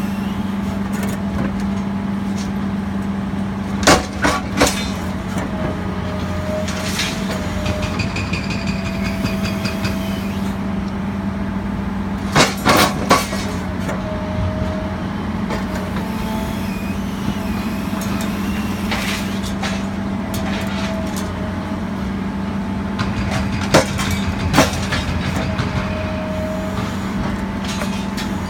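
Excavator's diesel engine running steadily while its hydraulic scrap shear works, with sharp cracks in three short clusters about 4, 12 and 24 seconds in, as the shear snaps through scrap steel.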